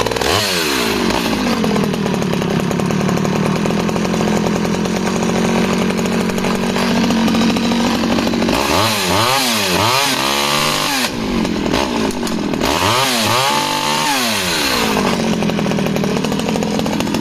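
Stihl 009 top-handle chainsaw's small two-stroke engine running just after a restart, settling to a steady idle. It is revved up and down in a run of quick throttle blips about halfway through, then again a few seconds later, before dropping back to idle.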